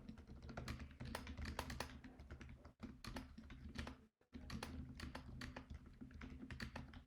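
Typing on a 60% hot-swap mechanical keyboard fitted with lubed silent tactile switches: a quick, quiet run of keystrokes, with a brief break about four seconds in.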